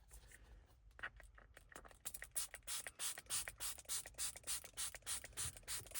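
Spray bottle misting water in a quick run of short hissing squirts, about three a second, starting about a second in: the screen is being wetted before the protector is laid on.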